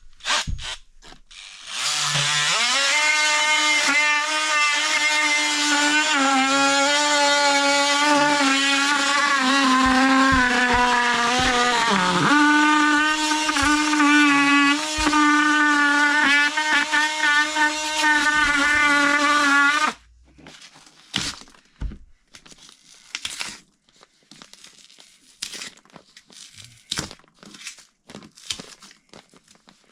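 Electric power tool cutting away cured spray foam along the bottom of a wall board. The motor spins up about two seconds in and runs steadily, sags in pitch briefly under load near the middle, then cuts off suddenly. Scattered light clicks and scrapes follow.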